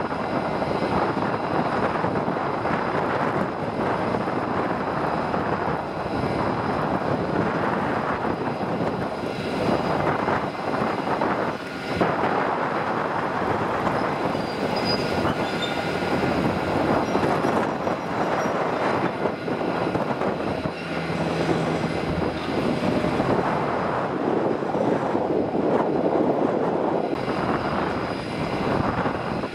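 De Havilland Canada Dash 8-300 twin turboprop's engines running at takeoff power, a steady broad rumble, as it rolls down the runway and lifts off.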